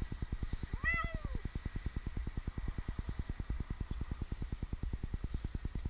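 A young cat meows once about a second in: a single call that rises and falls in pitch. Under it runs a steady, fast low throbbing.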